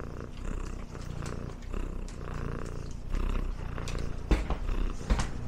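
Cat purring, swelling and easing about once a second, with two sharp knocks a little after four and five seconds in.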